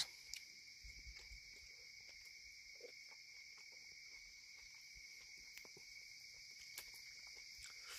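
Faint, steady chorus of night insects such as crickets, two constant high-pitched trills, with a few soft clicks and smacks from someone chewing food eaten by hand.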